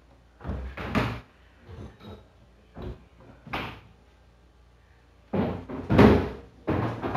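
Plastic freezer bins of a Samsung French door refrigerator knocking and clattering as they are handled and fitted into the pulled-out freezer drawer. A few separate knocks come first, then a busier clatter starts a little over five seconds in, loudest about six seconds in.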